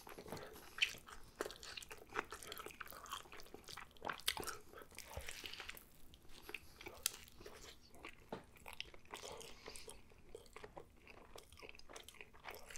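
Close-up sounds of a person biting into and chewing a messy breakfast burger on an everything bagel: a run of irregular clicks and crackles from the mouth and the food.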